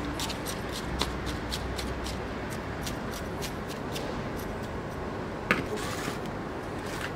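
Thin metal rod poked and worked into chunky potting mix of bark and perlite in a plastic nursery pot, making a run of small crunching, scratching clicks, with one sharper knock about five and a half seconds in.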